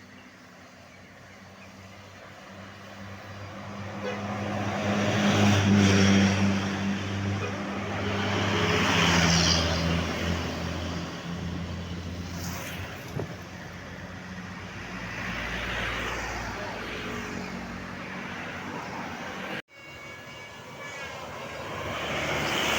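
Large tour buses driving past one after another, with a steady engine hum. Engine and tyre noise swells and fades as each bus goes by.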